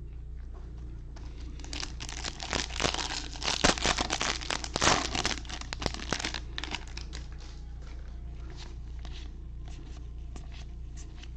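A 2021 Bowman baseball card pack wrapper being torn open and crumpled, a dense crackling run of crinkles from about a second and a half in to about seven seconds in, then a few faint crinkles.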